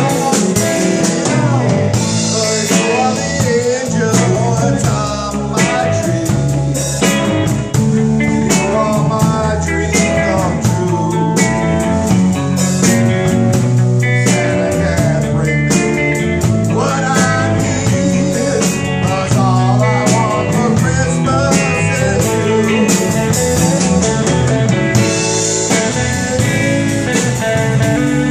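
A live rock band plays, with a man belting out the lead vocal over electric guitars.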